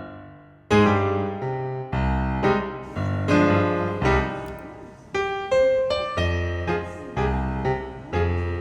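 Background piano music, struck notes and chords that fade, with a brief pause about half a second in.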